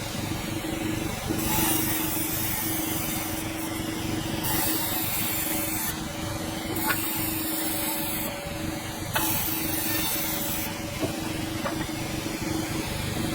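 Sawmill running and cutting a hardwood log: a steady mechanical hum under a continuous hiss of the saw in the wood, with a few light clicks.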